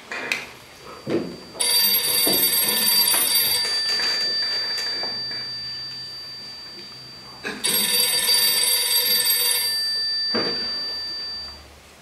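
Telephone bell ringing twice, each ring lasting about two seconds, with the bell's tone fading away after the second ring; a couple of light knocks come just before the first ring. The rings are an incoming call, and the receiver is picked up.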